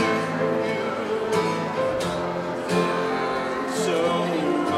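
Song accompaniment led by a strummed guitar, playing held notes in a pause between sung lines.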